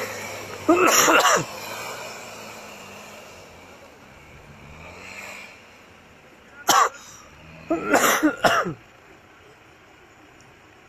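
A person coughing in two short fits, about a second in and again near the eight-second mark, loud against a faint 4x4 engine running in deep snow that fades as it drives off.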